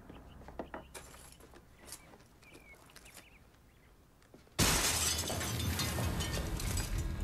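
A window pane shatters suddenly about four and a half seconds in, with breaking glass crashing and scattering. Before it there are only faint small household clicks and knocks.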